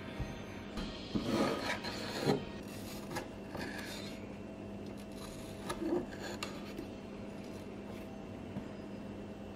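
Kitchen knife slicing a tomato on a wooden cutting board: short rasping strokes as the blade saws through the skin and flesh and meets the board, in a cluster about a second in, again around three seconds in, and once more near six seconds.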